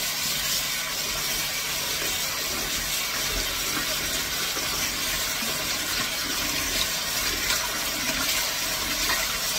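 Tap water running steadily into a bowl of cut raw potatoes, rinsing the starch off them.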